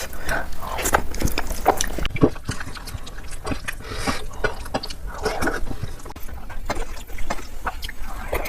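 Close-miked eating sounds: irregular chewing, mouth clicks and smacks of someone eating big mouthfuls of rice and curry.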